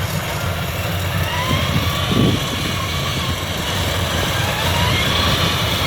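Combine harvester's diesel engine and threshing machinery running steadily with a deep drone, with a brief louder swell about two seconds in.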